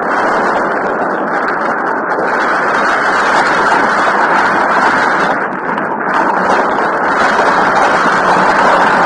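Steady, loud wind and rain noise on the camera's microphone, dipping briefly about two thirds of the way through.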